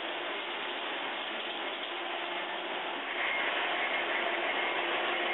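Large-scale model train running on its track, a steady mechanical rattle of motor, gears and wheels that gets louder about three seconds in as the cars pass close by.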